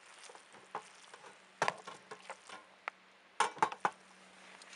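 A spoon stirring risotto and sausage in a camping frying pan, scraping and knocking against the metal pan in scattered clinks. The sharpest knocks come about one and a half seconds in and again around three and a half seconds, over a faint steady low hum.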